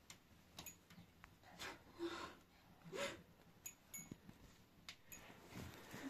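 Faint light tinkling of the small beaded trinkets hanging on a wooden baby cradle, with a few soft, short voice sounds in between.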